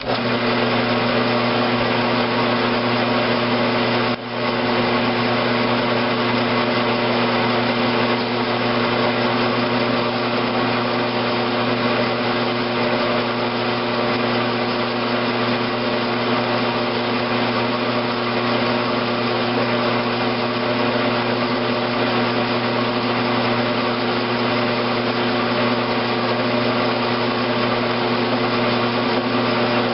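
Grizzly G9972Z bench lathe with gearbox running steadily, a steady hum of several tones, while it turns a light facing pass at 45 degrees on an engine-valve blank. The sound dips briefly about four seconds in.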